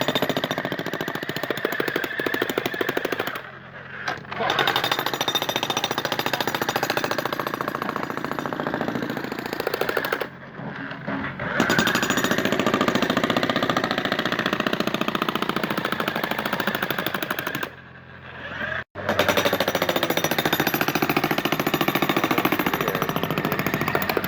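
Jackhammer pounding at a concrete driveway slab, breaking it up in a fast steady hammering, stopping briefly three times.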